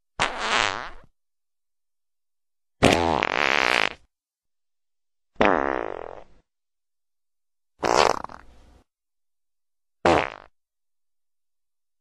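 Five fart sound effects played one after another with silent gaps between them, each lasting from about half a second to just over a second.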